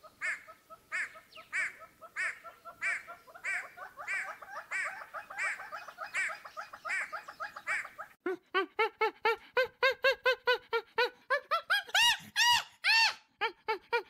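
Animal calls in two stretches. First, a regular series of short pitched calls about every half second over a fast, continuous chatter. Then, after an abrupt change, a quicker run of rising-and-falling calls, about four a second, loudest near the end.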